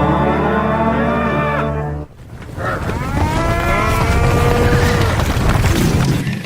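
Cow moos layered into a dense chorus of many gliding pitches in a trailer sound effect. A loud sustained chord with a deep drone plays first and cuts off about two seconds in, then the mooing chorus swells and holds.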